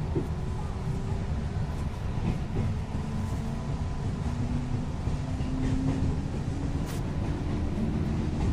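JR West 221 series electric multiple unit (DC traction motors with field-added excitation control) running on the Nara Line, heard inside the car: a steady rumble of wheels on rail, with a motor and gear tone rising slowly in pitch as the train gathers speed.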